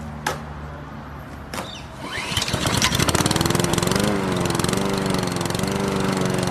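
Small lawn mower engine being pull-started: two quick cord pulls, then the engine catches about two seconds in, revs up, and runs steadily with a fast even beat.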